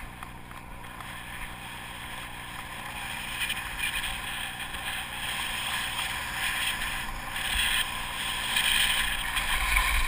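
Skis hissing and scraping over groomed snow, with wind rumbling on the microphone. It grows louder as the skier picks up speed toward the end.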